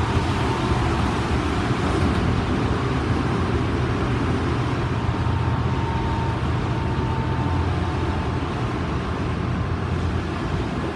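Odakyu 2000 series electric train car DeHa 2003 running steadily, a car singled out for its abnormally noisy traction motors: a loud, even rumble of wheels and running gear with a thin high whine that fades out about three-quarters of the way through.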